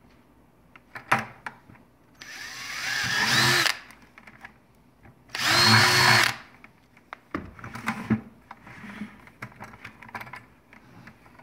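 Cordless drill boring through the wall of a plastic bucket in two bursts, about a second and a half and then about a second, the second louder. This is followed by scattered clicks and knocks.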